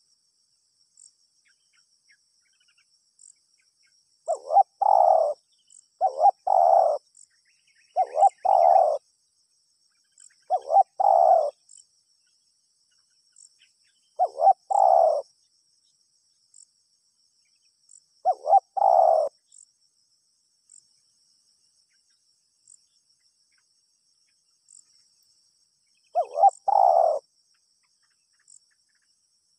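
A spotted dove, a trained decoy, cooing: short low coo phrases of about a second each, repeated seven times a few seconds apart, with a long pause in the second half. Faint steady high-pitched insect trilling runs underneath.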